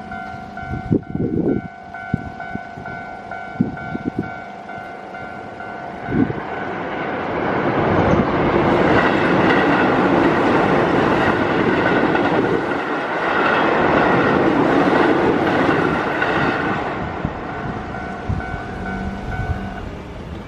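Japanese level-crossing alarm ringing with its steady repeating electronic tone while a Keio Line electric train runs through the crossing. The train's rumble and wheel clatter swell up about a third of the way in, stay loud for several seconds and fade. The alarm stops shortly before the end, the sign that the train has cleared and the barriers are about to lift.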